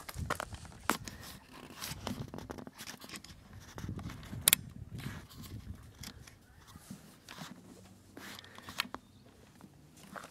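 Scattered light crunches, scrapes and clicks of footsteps on stone chips and a path, with a sharp click about four and a half seconds in.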